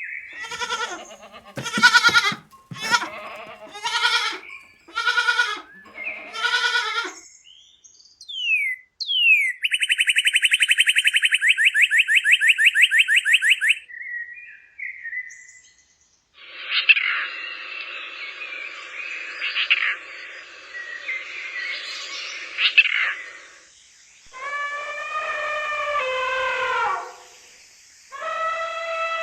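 A run of different animal calls. First about seven short repeated calls, then a fast high trill lasting about five seconds, then short chirps over a steady hiss, and near the end a few calls that fall in pitch.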